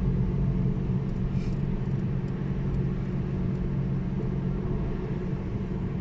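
A car driving at steady speed, heard from inside the cabin: a steady low engine and road rumble.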